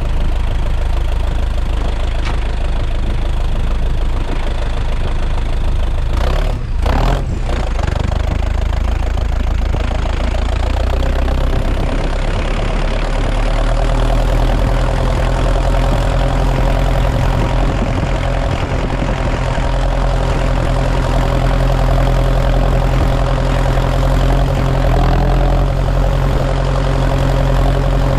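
New Holland T5050 tractor's four-cylinder diesel engine running at low revs just after being started, as the tractor moves off slowly. There are two short knocks about seven seconds in. About twelve seconds in, the engine settles into a slightly higher, steadier note.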